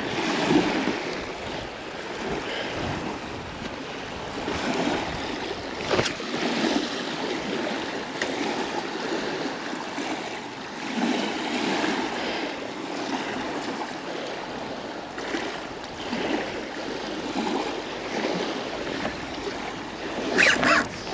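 Small waves lapping onto a pebble shore, the wash swelling and fading every few seconds.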